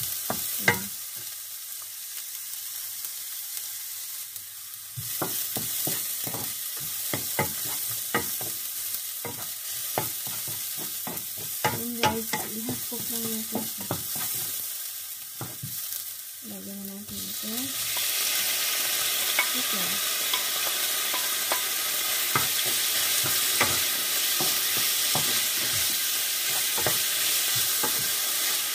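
Sliced onions and garlic sizzling in hot oil in a nonstick pan, stirred with a wooden spatula that clicks and scrapes against the pan. About seventeen seconds in, the sizzle grows much louder and denser as sliced chicken breast goes into the oil.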